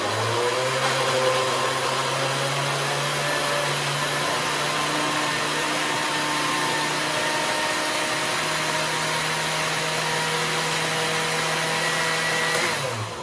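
Old Oster countertop blender pureeing fresh strawberries with a little water: the motor speeds up as it starts, runs steadily with a loud whirring, then winds down and stops near the end.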